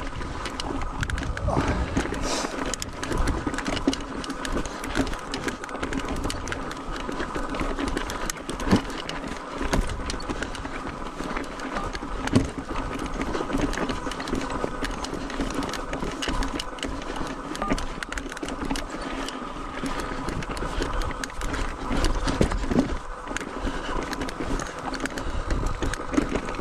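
Mountain bike rolling over rocky trail: a dense, continuous run of rattles and clicks from the bike, with a steady mechanical buzz underneath.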